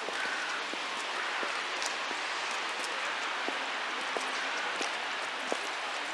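Footsteps on a wet, slushy path, soft irregular ticks about every half second to a second, over a steady hiss of outdoor background noise.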